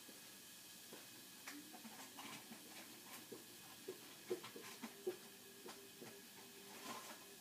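Liquid in a glass vessel bubbling faintly: scattered small pops, ticks and short gurgling blips at an uneven pace. Two louder pops come a little past halfway, and a faint steady tone enters near the middle.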